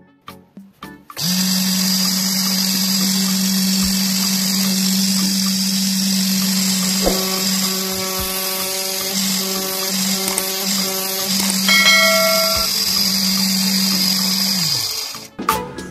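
Small high-speed brushed DC motor of the 775/790 size running at full speed: a steady whine with a high hiss that starts about a second in and runs down in pitch as the motor spins down near the end.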